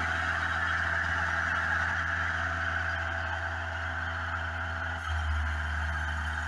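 Homemade portable band sawmill at work: its engine running with a steady low hum while the band blade saws lengthwise through a log, a continuous sawing noise over the engine. About five seconds in, the engine note gets louder.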